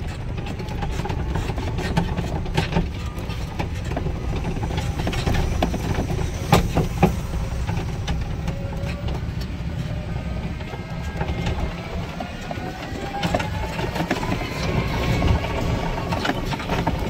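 Golf cart driving slowly over a rough grass field: a steady low rumble with rattles and knocks from the cart, and a faint whine that rises slowly in pitch through the second half.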